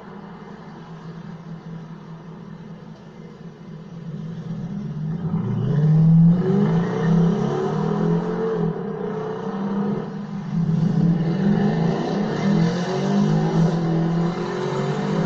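Supercar engine, quiet at first, then from about five seconds in revving and accelerating loudly, its pitch rising and falling again and again.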